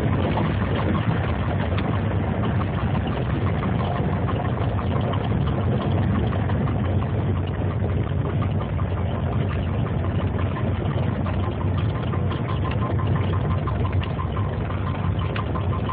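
Piper PA-28 light aircraft's piston engine idling with the propeller turning slowly, heard from inside the cockpit during the landing rollout: a steady, even engine note.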